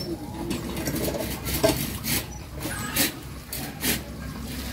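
Metal hand sickle scraping and striking into soil as a seedling is planted, a few short sharp strokes about a second apart.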